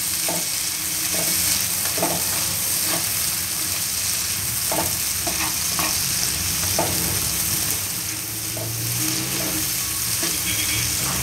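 Chunks of onion sizzling in hot oil in a non-stick pan, stirred with a spatula that scrapes and knocks against the pan every second or so, being sautéed only until the raw smell goes.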